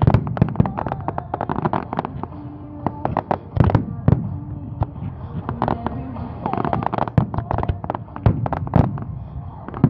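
Fireworks display: a dense, unbroken run of bangs and crackles as many shells burst in quick succession.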